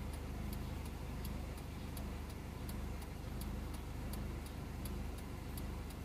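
Turn-signal flasher relay ticking steadily, a few clicks a second, over the low steady hum of the Honda Civic's engine idling.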